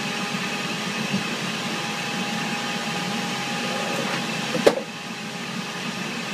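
TIG (gas tungsten arc) welding arc buzzing steadily over a background hum of ship ventilation. About three-quarters of the way through there is a sharp click, and a steady tone stops with it.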